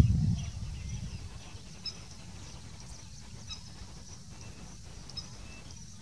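Outdoor ambience by a pond: a low wind rumble on the microphone that eases about half a second in, with faint, scattered chirps of distant small birds.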